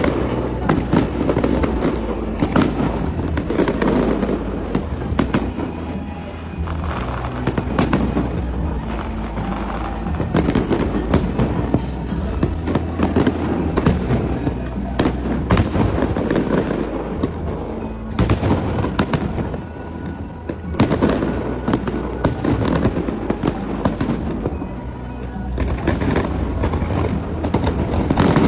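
Aerial fireworks display: shells bursting in rapid, overlapping bangs and crackles, thickening into a denser barrage near the end, with music and its steady bass running underneath.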